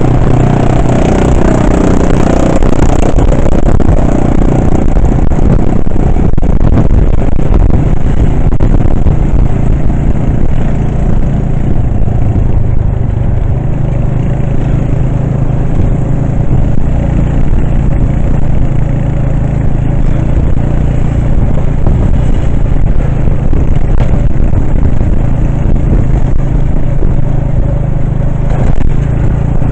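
Steady engine and road noise of a vehicle being driven, a loud, even rumble.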